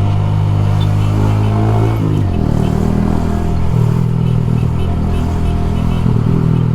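Motorcycle engine running steadily under way, with wind rushing past the microphone. About two seconds in the engine note drops briefly, then holds steady again.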